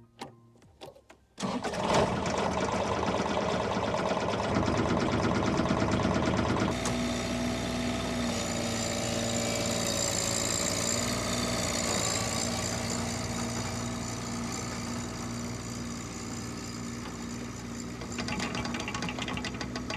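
A small power tool's motor running steadily with a fast mechanical rattle. It starts about a second and a half in, and its pitch and texture change a couple of times.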